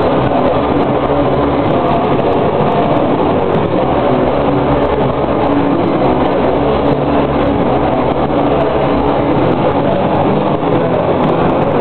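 A live band playing loud: electric guitars and a drum kit, heard as a dense, steady wall of sound with no breaks.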